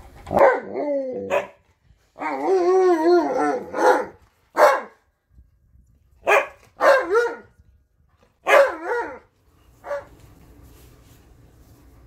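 Husky-type dog 'talking' for food: a string of about eight pitched, wavering woo-woo calls and yips, with one longer wobbling howl-like call a couple of seconds in.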